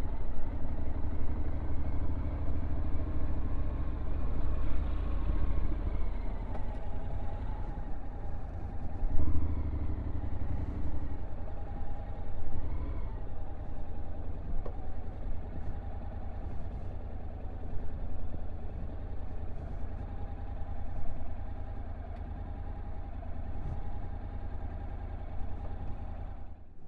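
Honda NC750X DCT's 745 cc parallel-twin engine running at low revs on a downhill ride, a steady low rumble whose note rises and falls gently a few times.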